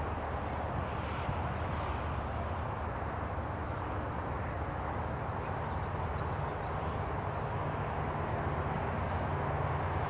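Steady outdoor background noise with a low rumble, and a few faint short bird chirps about four to seven seconds in.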